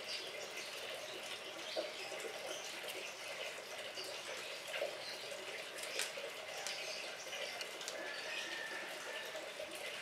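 Steady faint hiss like running water, with a few short crinkling clicks as a Mentos candy wrapper is picked open by hand.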